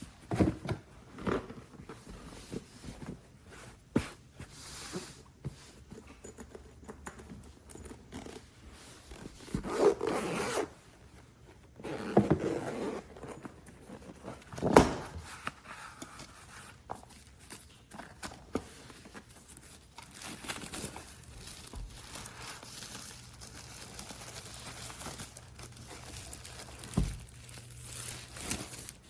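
Handling noises: scattered clicks and knocks with a few short, scraping rasps like a zipper or stiff plastic being worked.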